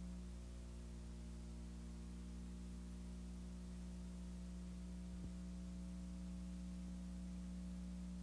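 Steady electrical mains hum with its stack of overtones over a faint hiss, with one faint click about five seconds in: the sound of a blank stretch of an old videotape recording.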